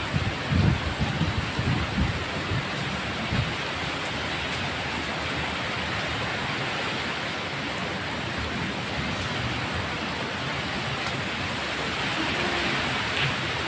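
Typhoon wind and rain: a steady hiss of rain and wind through the trees. Gusts rumble on the microphone during the first three seconds or so, then die down.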